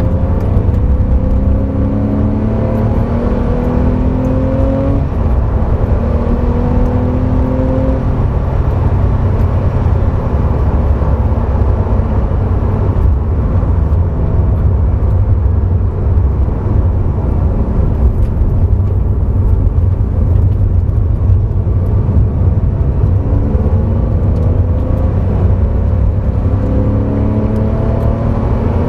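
Porsche sports car engine heard from inside the cabin under hard acceleration on a race track. Its pitch climbs, drops at a gear change and climbs again in the first several seconds and again near the end, over a heavy steady low rumble.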